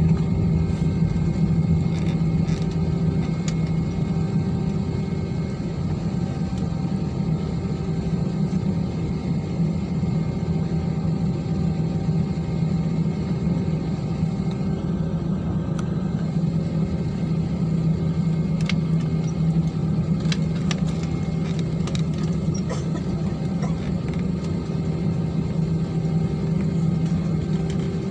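Jet engines of an IndiGo Airbus A320-family airliner heard from inside the cabin at low ground thrust before takeoff: a steady low rumble with a faint whine over it.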